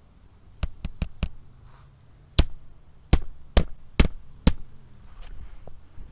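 Hammer driving roofing nails into asphalt shingles: four quick light taps, then five heavier, evenly spaced strikes about a second later.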